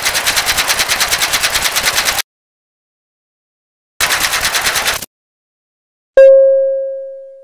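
Sound effects for an animated intro: a rapid clatter of clicks, about a dozen a second, in two runs, then a single bell-like ding about six seconds in that rings and fades slowly.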